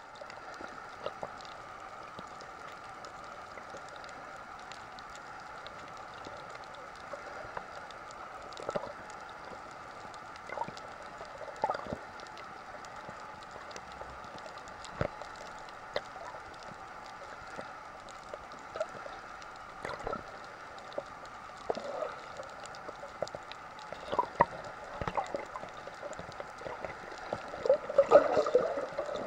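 Underwater sound as picked up by a camera in a waterproof housing: a steady muffled hiss and hum with scattered sharp clicks. From about 27 seconds in, louder gurgling water takes over.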